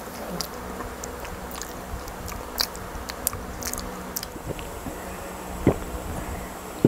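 Close, lapel-miked mouth sounds of eating: chewing, with a run of short wet clicks and smacks as sauce is licked off the fingers. Near the end come two sharp knocks, the second the loudest sound.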